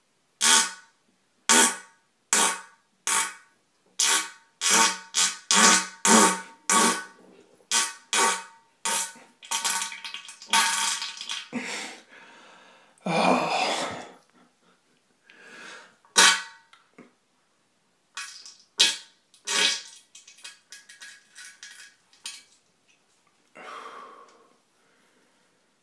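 A person retching and vomiting over and over: a string of loud, short, buzzy heaves, with a few longer drawn-out ones in the middle. They grow sparser towards the end.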